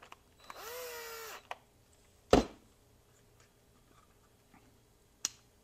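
DeWalt cordless drill/driver spinning up, running for about a second and winding down as it drives a screw into a multimeter's battery cover. A sharp knock follows about two seconds in, and a lighter click comes near the end.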